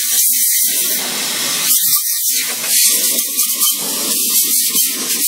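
Compressed air jetting from a hose nozzle onto a cast bearing housing, a loud steady hiss, with an irregular lower rattling sound beneath it.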